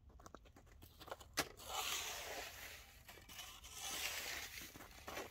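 Frozen slush and ice crunching and scraping in two rough spells, with a sharp knock just before the first.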